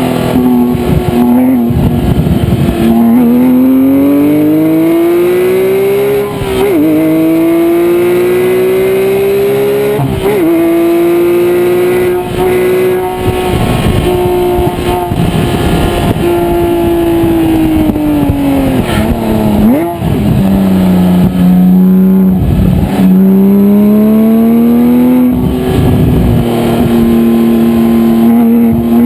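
Porsche 997 GT3 RS's 3.8-litre flat-six engine through a Cup race exhaust, heard right at the tailpipes under hard track driving. The pitch climbs under acceleration, holds high for long stretches, and drops sharply with a short break at each of several gear changes.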